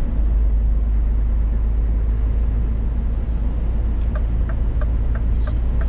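Steady low drone of a Scania S500 truck heard from inside the cab on the move. From about four seconds in there is a run of even ticks, about three a second.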